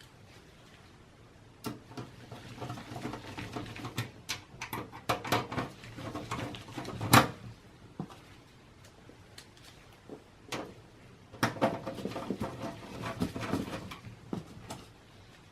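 Handling noise from work inside a desktop computer case: scattered clicks, light knocks and rustling, with one sharper knock about seven seconds in.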